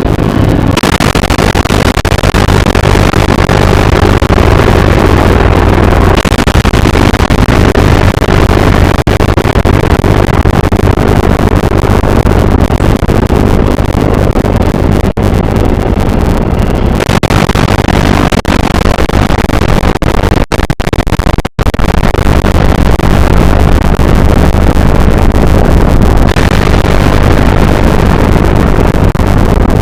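Loud, continuous rushing noise with a deep rumble beneath, like a roaring engine or wind. Its hiss thins and returns a few times, and it cuts out for two instants about twenty seconds in.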